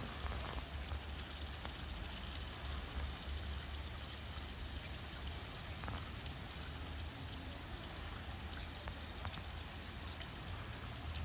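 Garden fountain splashing steadily, a constant rain-like patter of water, with a low rumble underneath and a few faint clicks.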